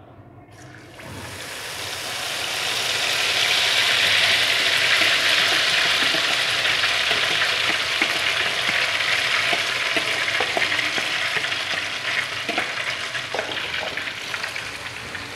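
Semolina, egg and milk batter poured slowly into hot ghee and melted sugar in a wok, sizzling loudly as it hits the fat. The sizzle builds from about a second in and eases a little near the end, with the knocks and scrapes of a wooden spatula stirring it.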